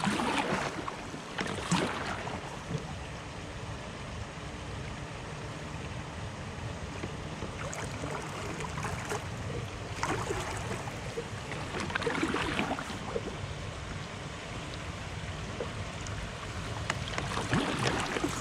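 A kayak drifting on a calm river, with a steady rush of wind on the microphone. A few soft paddle splashes come near the start, around the middle and near the end.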